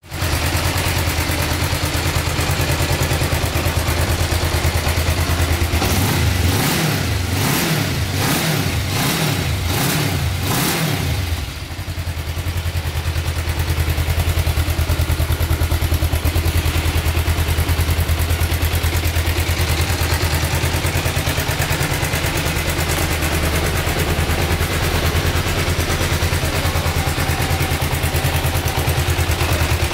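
Kawasaki GPZ500S parallel-twin motorcycle engine idling steadily. Between about six and eleven seconds in it is blipped in a quick run of short revs, about one every two-thirds of a second, then settles back to idle.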